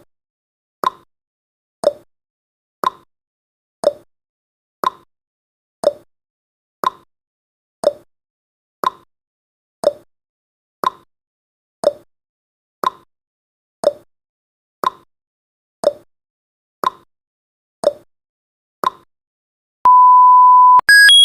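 Countdown timer sound effect ticking once a second, alternating tick and tock. As the timer reaches zero near the end, the ticks give way to a steady beep of about a second, then a higher, louder electronic alarm beep.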